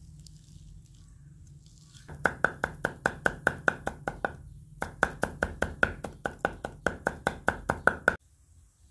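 Large kitchen knife rapidly chopping garlic cloves on a wooden cutting board, about eight strokes a second. It starts about two seconds in, breaks off briefly, resumes, and stops abruptly near the end.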